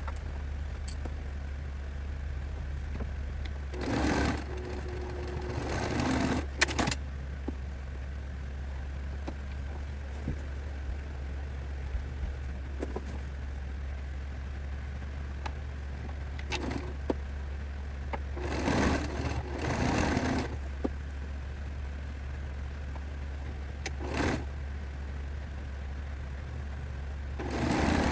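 Sewing machine stitching in several short runs, with a steady low hum underneath between them.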